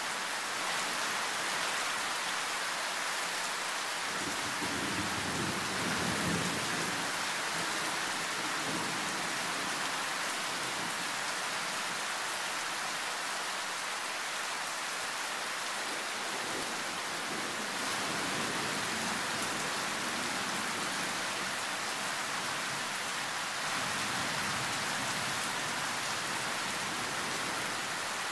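Heavy tropical rain falling steadily in a loud, even hiss, with low rolls of thunder rumbling underneath, the strongest about four to eight seconds in and fainter ones later.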